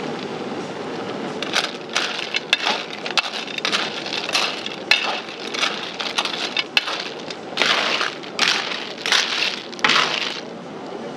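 Pepper conch shells clattering against each other and against a steel wok as they are stirred with a metal ladle. Near the end come denser hissing bursts of sizzling as liquid is poured into the hot wok.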